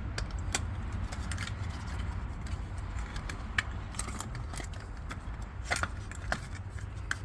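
Scattered small clicks, ticks and rattles of hands handling the RV water heater's auto-ignition control board and its plastic connectors.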